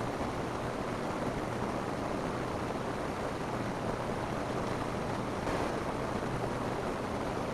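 Steady rain falling on a roof, an even hiss of many drops with no let-up.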